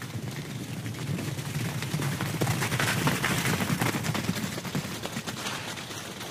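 Studio logo sound effect: a dense rush of rapid clattering that swells to a peak about halfway through, then fades away.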